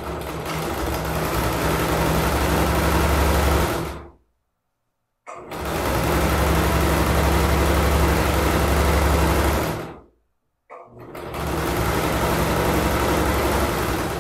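Domestic electric sewing machine stitching a seam through fabric and batting, in three runs of a few seconds each with short silences between; each run picks up speed and then stops.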